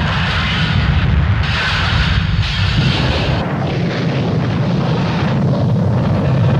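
Wind buffeting the microphone: a loud, steady rumble with a rushing hiss over it, the hiss easing about three and a half seconds in.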